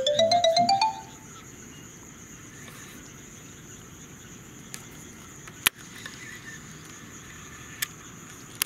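A short electronic transition sound effect: a quick run of tones stepping upward over about a second. After it comes a steady, even chorus of night insects, with a sharp click about five and a half seconds in and a fainter one near the end.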